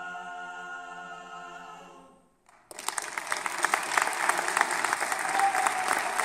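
Male a cappella quartet holding a final sustained chord that fades away about two seconds in; after a brief silence, the audience breaks into applause that continues to the end.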